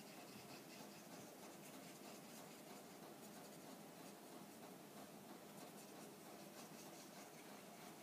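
Faint, soft scratching of a water brush's bristles stroking over watercolour paper as ink colours are blended, over a low room hiss.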